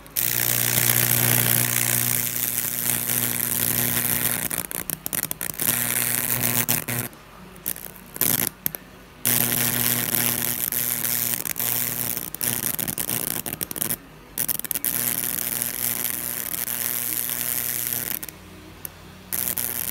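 High-voltage electricity arcing and burning through a wooden board, making Lichtenberg fractal burns: a loud electrical buzz with a deep hum under a crackling hiss. The power cuts out briefly about four times, at roughly 7, 8.5, 14 and 18 seconds in, and the buzz comes straight back each time.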